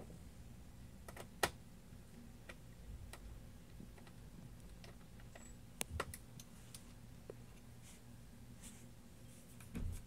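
Scattered small clicks and taps of a screwdriver and screws against the metal back cover of an all-in-one computer, with a sharper tap about a second and a half in and a quick cluster of taps around six seconds.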